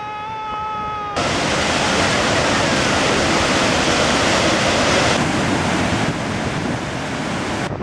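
Gullfoss waterfall: the steady rush of a large waterfall, cutting in abruptly about a second in and running until just before the end. Before it, a brief held pitched note sounds for about a second.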